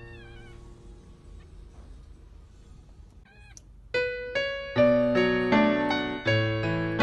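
A dog's high, wavering whine fading out in the first half-second, and a short rising squeak a little after three seconds. From about four seconds, piano music plays a line of single notes and is the loudest sound.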